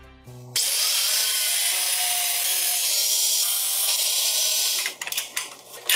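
Angle grinder with a cut-off disc cutting through rusted steel cables and a steel bracket. It starts abruptly about half a second in, runs steadily for about four seconds and cuts off, followed by a few short knocks near the end.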